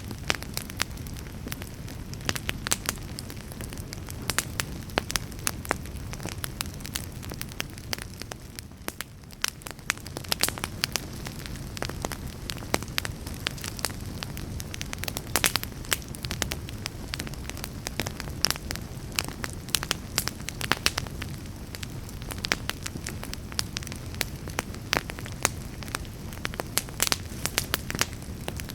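Fire in a fireplace crackling, with frequent irregular sharp pops over a low steady rumble of flames, and a brief lull about nine seconds in.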